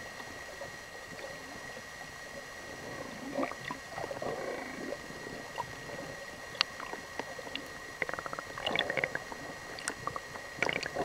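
Underwater ambience through a compact camera: a steady hiss with a constant high tone, scattered sharp clicks, and muffled sounds at about four and nine seconds in.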